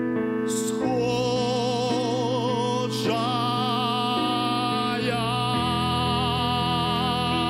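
A man singing long held notes with a wide vibrato, over sustained accompaniment chords that change a few times.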